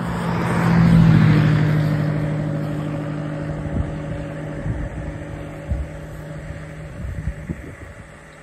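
A motor vehicle passing close by on the road, its engine and tyre noise swelling to a peak about a second in and then slowly fading away.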